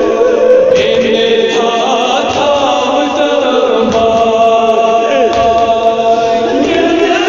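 Kashmiri nauha, a Muharram lament, chanted by several voices together without a break.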